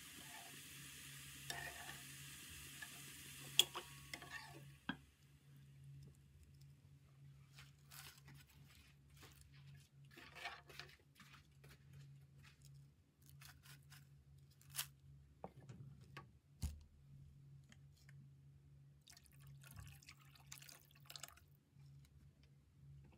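Oats shorba simmering in a pan and stirred with a metal spoon. A faint sizzling hiss stops about five seconds in, then scattered small pops and spoon clicks follow over a steady low hum.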